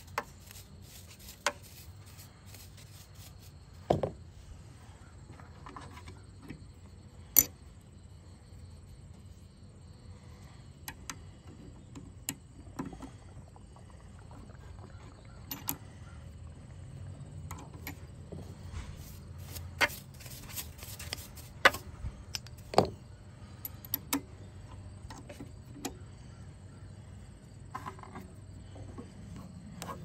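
Scattered sharp metallic clicks and taps from a brass key being handled, taken out of and set into the clamp jaws of a Black Widow key cutting machine, with a faint steady low hum underneath. The cutter is not running.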